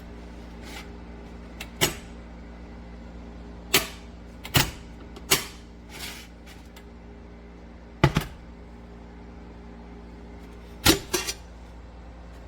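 Stainless steel tea kettle being handled: several sharp metal clacks and clinks at irregular intervals, two close together near the end, over a steady low hum.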